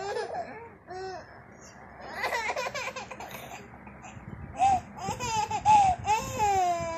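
Toddler laughing in short bouts, louder and higher in the second half with squealing giggles.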